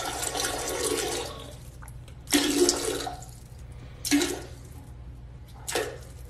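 Water rushing and splashing into a toilet bowl, fading out about a second and a half in, followed by three short separate bursts of sound.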